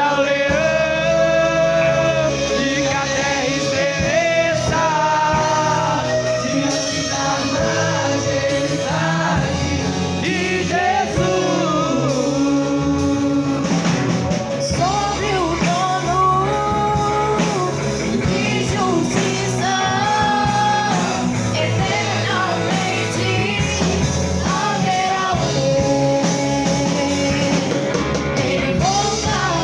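A Christian song sung over band accompaniment with guitar: the voice carries a gliding melody over a steady, full backing.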